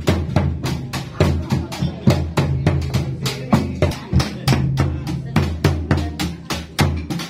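South Sulawesi gendang (red double-headed barrel drums) beaten in a fast, driving rhythm of several strokes a second, over the low, recurring ringing of a large hanging gong.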